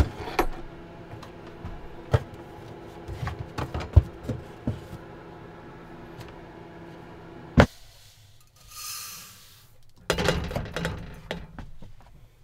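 A wooden overhead cabinet door opened and a wooden cutting board lifted down and handled: a string of knocks and clacks, the loudest about four and seven and a half seconds in. Under them runs the steady hum of the camper's furnace fan, which stops at the second loud clack. After a brief soft hiss, rustling and handling at the kitchen counter fill the last couple of seconds.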